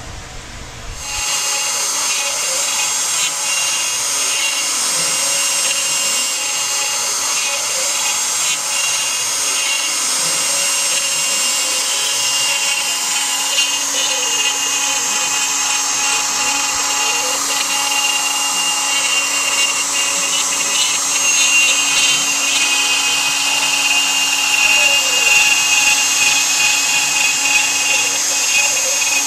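Homemade CNC router's spindle running with a steady high whine as a small ball-nose bit carves a 3D relief into a pine board, getting louder about a second in. Faint tones rise and fall underneath as the machine moves.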